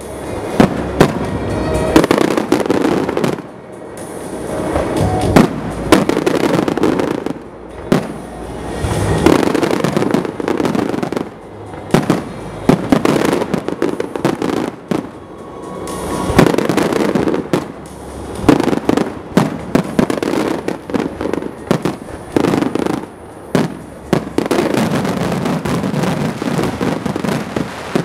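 Fireworks display: aerial shells burst one after another, with sharp bangs over a continuous rumble and crackle. The noise swells in waves every few seconds.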